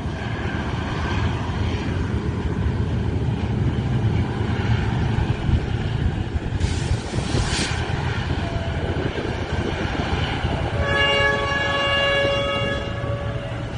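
Train running over a railway bridge with a steady low rumble; a hiss lasting about a second sounds midway. Near the end the train horn blows a chord of several tones for about two seconds.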